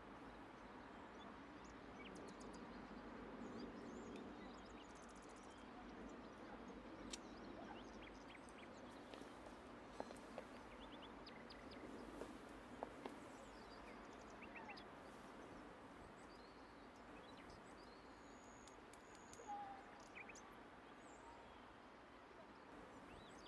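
Quiet outdoor ambience: a faint steady background with scattered short bird chirps and calls, and a few soft clicks.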